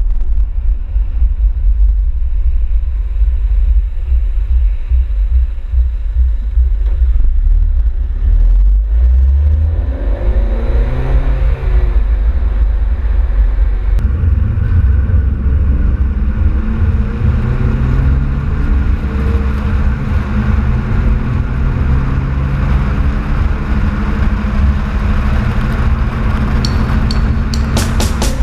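Honda Civic Type R engine and exhaust heard from a camera mounted on the car's rear, a heavy low rumble with the revs rising, dropping and rising again from about ten seconds in as the car accelerates through the gears.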